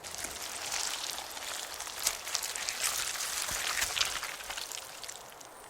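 Water pattering and splashing steadily, with scattered sharp drips and splashes.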